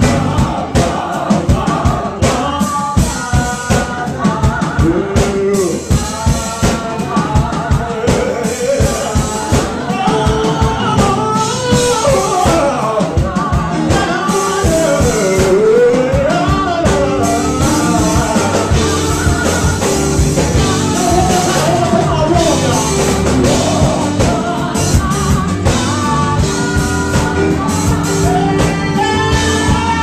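Male lead vocalist singing live with a band: keyboard and a drum kit keeping a steady beat under the voice.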